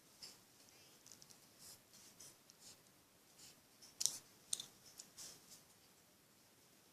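Slime being handled and squeezed, making soft scattered clicks and little pops, the sharpest two about four seconds in.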